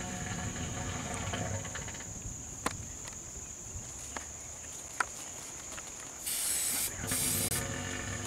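Two short hissing bursts of aerosol spray, each about half a second, a moment apart, typical of a wound spray being applied. A steady high insect drone runs underneath.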